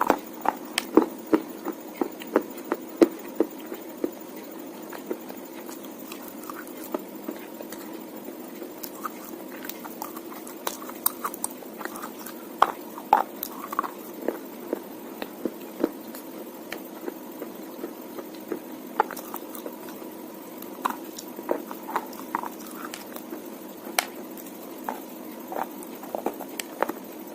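Someone biting and chewing wet slate: irregular sharp crunches and clicks over a steady low hum.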